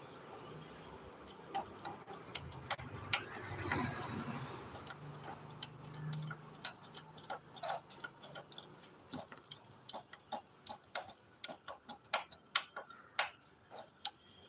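Irregular clicks and knocks of hand work on a top-load washing machine drum, coming faster in the second half, with a low steady hum for the first six seconds or so.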